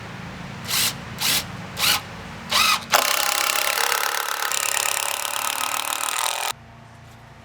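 Brushed Makita cordless impact driver: four short trigger blips, each with the motor whining up, then about three and a half seconds of continuous hammering as it drives a fastener into the wood. It stops abruptly.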